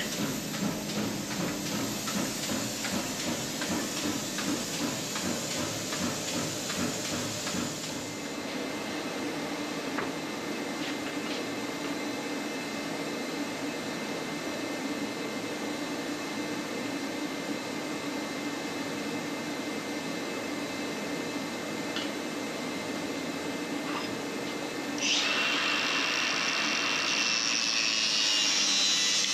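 A machine running steadily with a rough, rhythmic texture that evens out about eight seconds in. About 25 seconds in, a louder, higher rushing noise starts.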